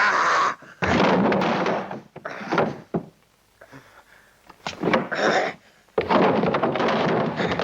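A series of heavy blows landing, thudding punch sound effects in several bunches with short quiet gaps between.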